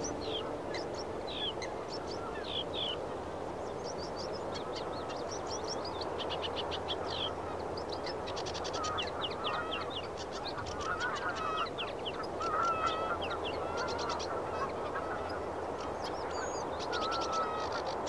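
A chorus of birds: many short chirps and quick trills over a steady, dense background, with wavering honking calls that come in during the middle and toward the end.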